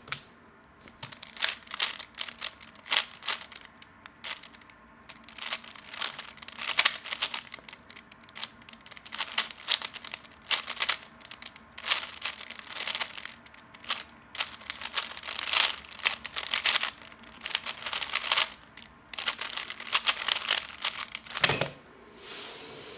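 A 3x3 speedcube being turned fast by hand: a rapid, irregular clatter of plastic layer clicks that comes in bursts. A single dull thump near the end.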